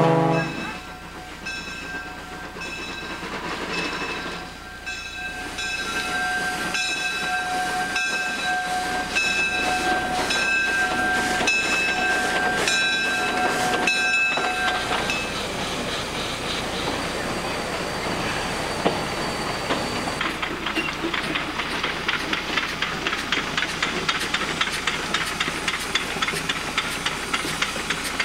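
A locomotive bell rings steadily at an even pace. Then the coal-fired 1912 Heisler geared steam locomotive runs past with quick, even exhaust beats and steam hiss, its wheels clicking over the rail joints.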